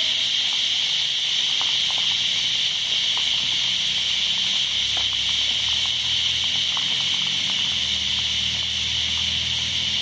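A dense chorus of cicadas in the trees, one continuous high buzz with no break. A faint low hum joins underneath about halfway through.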